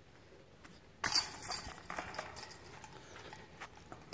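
Metal chains and wire basket of a disc golf target jangling and clinking. A sharp clatter starts about a second in, then a rattle of small clicks fades over the next few seconds as the disc is handled in the basket.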